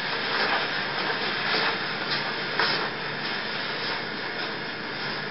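Steady background hiss, with a few faint knocks in the first few seconds.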